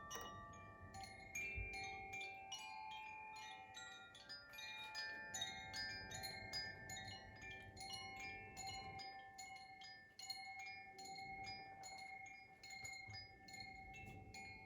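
Koshi chime rung by hand: its clapper strikes the tuned rods inside the bamboo tube several times a second, leaving bright ringing tones that overlap and sustain.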